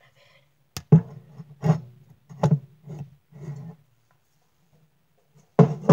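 Handling noise right at the camera's microphone: a sharp click, then a run of short thuds and rustles roughly every 0.7 seconds, and another loud cluster near the end.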